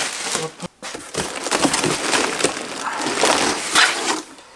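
Packaging being rustled and crinkled by hand as a parcel is unpacked, with many small crackles and clicks.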